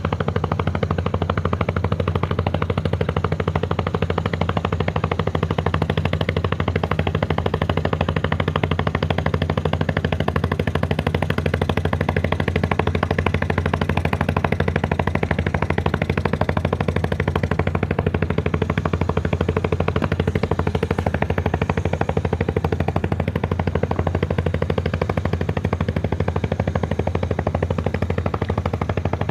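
A boat engine running steadily, a rapid, even chugging beat with a strong low hum.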